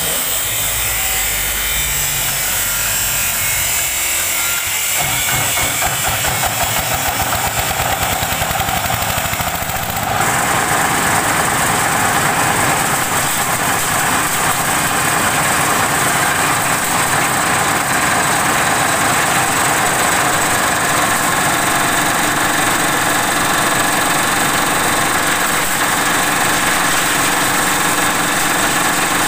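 A small engine runs an organic-waste chopper with a 12-blade cutter. For the first several seconds the engine runs with an even beat. About ten seconds in the sound becomes louder and fuller, as the chopper shreds organic waste into compost material, and it then holds steady.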